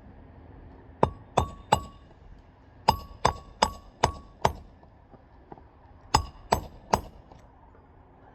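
Hammer driving a roofing nail into an asphalt shingle: eleven ringing metal-on-metal blows in three quick runs of three, five and three, setting the nail flush. The repeated pounding is what loosens granules from the brittle old shingles.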